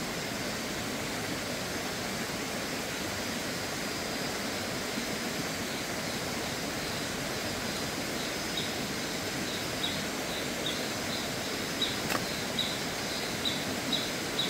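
Steady outdoor ambience: an even hiss, joined about six seconds in by a high chirp repeating roughly twice a second from a small creature.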